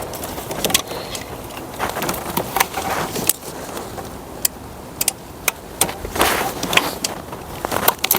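Injector wiring harness being unclipped and worked loose from a Mercedes CL600 V12 engine: irregular sharp clicks and knocks over a low rustle of handling.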